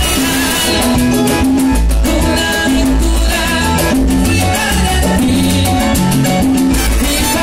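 A live tropical dance band plays a cumbia-salsa groove, with electric bass, trumpet, keyboard and hand percussion over a steady repeating bass line.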